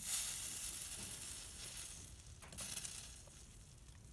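Flux sizzling under a hot soldering iron as it melts solder wire into the joint between a lamp shade's vent cap and the leaded glass around it. The sizzle is strongest at first and fades over about two seconds, then comes again more briefly about two and a half seconds in.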